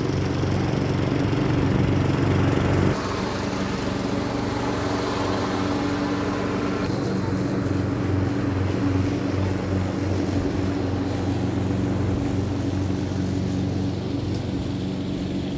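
Lawn mower running steadily: a constant motor hum over cutting noise. The tone shifts abruptly about 3 s and 7 s in.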